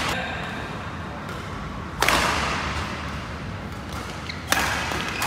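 Badminton racket strikes on a shuttlecock: three sharp cracks, about two seconds in, about two and a half seconds later, and again right at the end, each echoing in a large hall.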